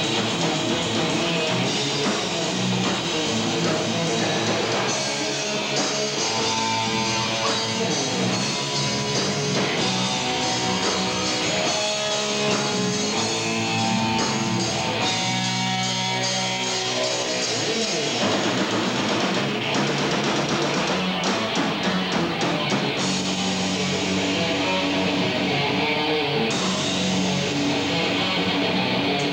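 Live rock band playing loudly, with distorted electric guitars over a drum kit, captured on a VHS camcorder's microphone.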